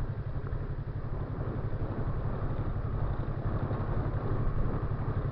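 Motorcycle engine running steadily, a low even drone with a haze of road and air noise over it.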